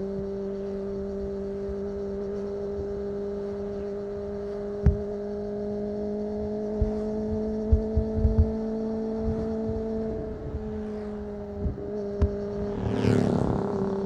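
Kawasaki ZX-25R inline-four engine through an Akrapovic exhaust, heard onboard while cruising at a steady, fairly high engine speed. Its pitch creeps up slowly, then eases off about ten seconds in. Wind buffets the microphone with scattered low thumps, and a brief noisy swell comes near the end.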